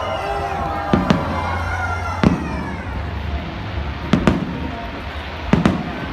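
New Year fireworks bursting: several sharp bangs, most in quick pairs, over a continuous background rumble.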